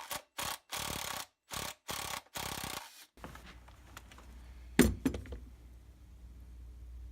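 Ratcheting Torx driver clicking through short back-and-forth strokes, about two a second, as it backs out T25 Torx screws holding a chainsaw's bumper spike. The strokes stop after about three seconds, and a single sharp knock follows near five seconds in.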